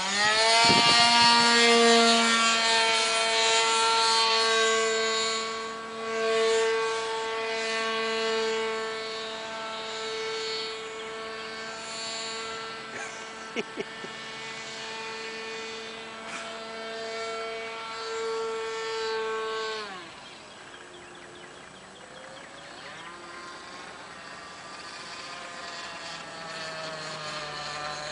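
A Sig Kadet LT-40 radio-controlled trainer plane's engine and propeller open up to full power with a sharp rise in pitch, then hold a steady high-pitched whine for about twenty seconds. About twenty seconds in the throttle comes back: the pitch drops suddenly and wavers lower and quieter.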